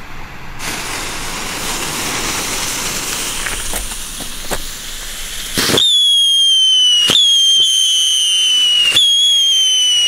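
Scream Mini whistling ground fireworks, lit together: a steady hiss for about five seconds, then a loud, high whistle that falls slowly in pitch. Sharp cracks come three times as the whistle breaks and starts again.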